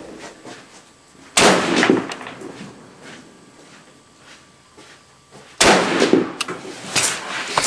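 SKS semi-automatic rifle firing 7.62×39mm rounds: two shots about four seconds apart, each followed by a short echo, with a smaller sharp crack near the end.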